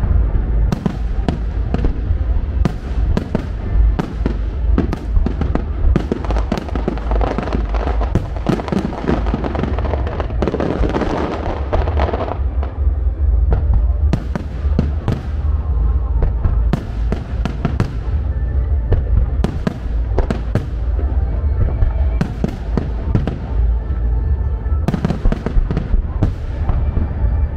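Rapid-fire starmine barrage of aerial firework shells bursting, a dense, unbroken run of booms several a second over a continuous low rumble. Music plays behind it throughout.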